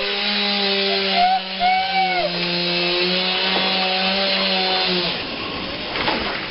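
Chainsaw running at full throttle and cutting wood, its engine note held steady. It drops off about five seconds in, then revs up again near the end.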